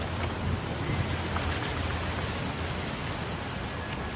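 Steady wind noise buffeting the microphone, a constant low rumble and hiss. About a second and a half in there is a brief crisp rustle, like dry fallen leaves being stirred.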